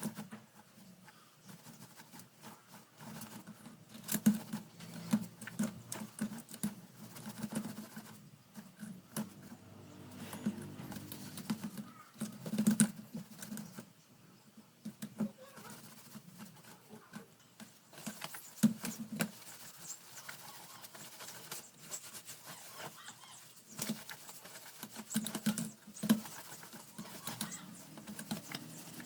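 Electric fan parts being handled and cleaned by hand: irregular light clicks, taps and rubbing of plastic, with no steady rhythm.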